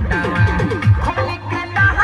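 Instrumental passage of a Bhojpuri song: a steady thumping beat about twice a second under plucked-string and synth notes, with a run of quick falling notes in the first second.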